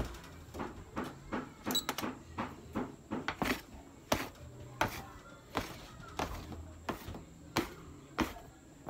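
Metal bench scraper chopping through a rope of bread dough and striking a stainless-steel worktable, a sharp tap with each cut, about one to two a second.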